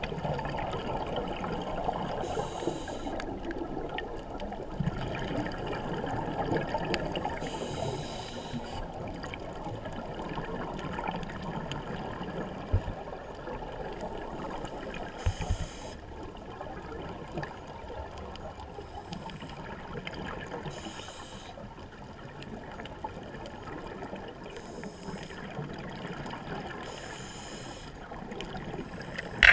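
Muffled underwater noise picked up through a camera housing, with a scuba diver's regulator exhaust bubbles hissing in short bursts about six times, one with each breath out.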